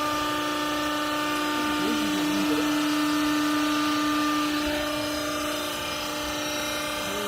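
Hydraulic baler's electric motor and pump running with a steady hum at a constant pitch.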